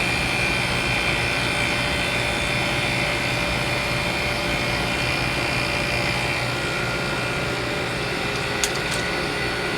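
1973 Gibson 8000 BTU window air conditioner running steadily on low cool, its fan and Copeland compressor humming with a steady whine, on its first start in half a year. A couple of faint clicks near the end.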